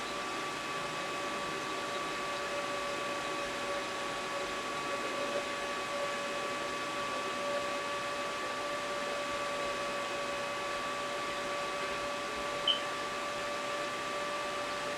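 Steady hiss of a small electric fan on a workbench, running with a constant whine, and one light click about two seconds before the end.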